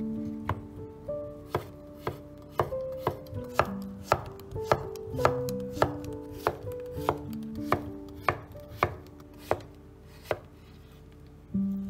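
Kitchen knife slicing zucchini into thin half-moons on a wooden cutting board. Each cut ends in a sharp knock of the blade on the board, about two a second, and the cuts stop near the end.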